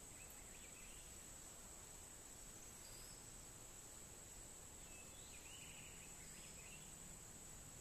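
Near silence: a faint, steady high-pitched insect drone, like crickets, with a few faint chirps about five to six seconds in.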